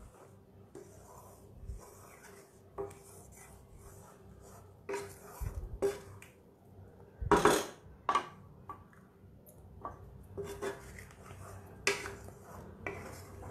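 Spatula scraping and knocking against a metal pan while stirring thick dal, in irregular strokes, the loudest a little past halfway.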